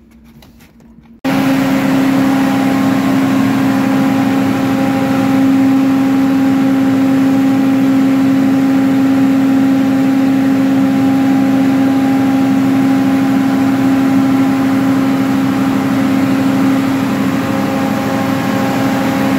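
Engine-driven generator set running steadily: a loud, even engine drone with a constant hum over it, cutting in abruptly about a second in.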